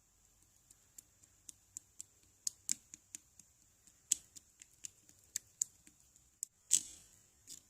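Slime being squeezed and poked by hand, giving off irregular sharp little clicks and pops, two or three a second, with one louder, longer pop near the end.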